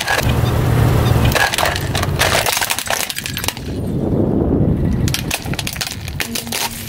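Car tyre rolling over and crushing pink plastic toys: a run of sharp cracks and crunches over a low rumble from the tyre. About four seconds in it turns to a denser crumpling sound, with a few more cracks after it.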